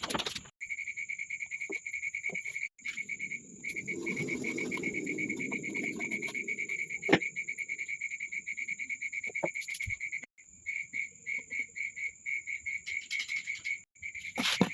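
Steady high-pitched trilling of insects, breaking into pulses about three to four times a second near the end, with a low rustling noise in the middle and a few sharp knocks.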